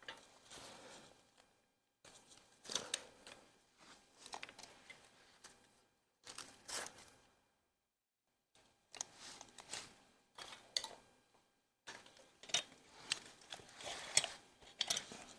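Faint, irregular clicks, scrapes and light metal clinks of hand tools and parts being handled during an engine teardown, with a few stretches of silence in between.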